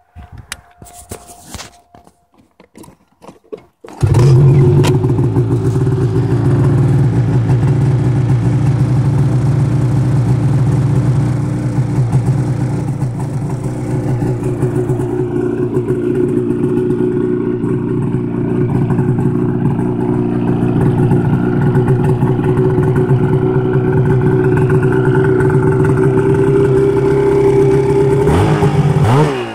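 Ski-Doo Summit 800R snowmobile's two-stroke twin being started on the electric starter: a few seconds of cranking, then the engine catches about four seconds in and settles into a steady fast idle around 2000 rpm. There is a brief rev near the end.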